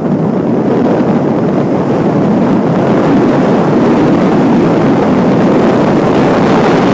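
Loud, steady rush of wind and road noise from a car driving at speed, the wind blowing over the microphone at an open side window.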